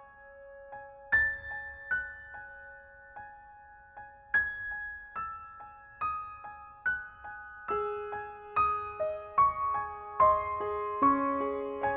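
Slow, soft piano music: single ringing notes at first, growing busier with lower notes joining about two-thirds of the way through.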